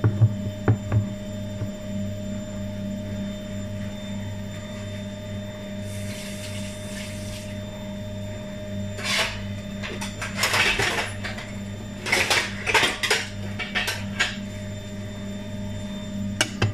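Kitchen dishes and utensils being handled, knocking and clinking in several quick bunches in the second half, over a steady low hum.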